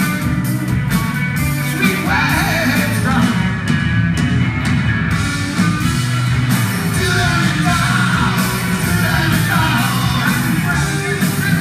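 Live rock band playing loudly, with electric guitars, keyboard and drums and a voice singing.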